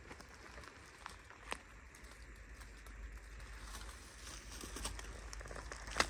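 Faint footsteps rustling and crackling through damp leaf litter and twigs on a forest floor, with a couple of sharp twig snaps about a second and a half in. A low rumble rises from about halfway.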